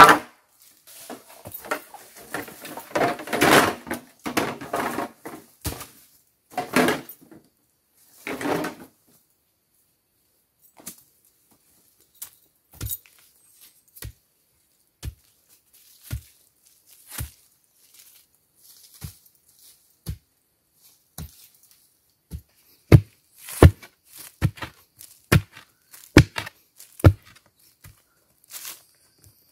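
Green bamboo poles knocking together and scraping over dry leaf litter as they are laid down. Then a shovel blade chopping into packed earth to dig a hole, about one strike a second at first, then faster and harder near the end.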